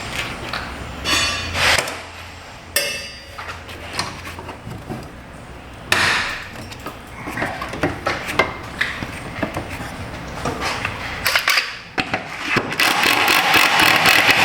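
Hand tools and metal A/C lines clinking and knocking in irregular sharp taps as the lines are worked loose and unhooked under the van, with a denser run of rapid clicking near the end.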